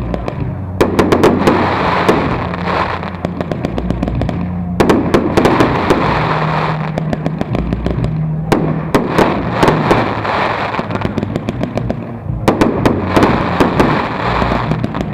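Aerial fireworks bursting: dense rapid crackling and popping with sharp bangs, coming in waves that start again about every four seconds.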